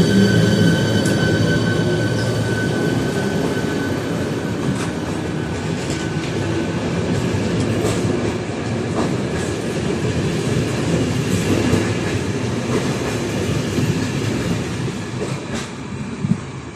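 Passenger train pulling out of the station and rolling past, its wheels clicking over the rail joints. A steady whine at the start fades within the first couple of seconds, and the rumble slowly grows quieter as the train moves away.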